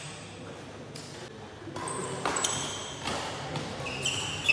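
Badminton shoes squeaking in short bursts on the court mat as a doubles rally gets going, with a sharp racket strike on the shuttlecock at the very end.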